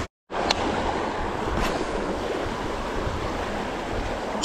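Steady rush of creek water spilling over a low rocky ledge and riffle, with a few light clicks on top.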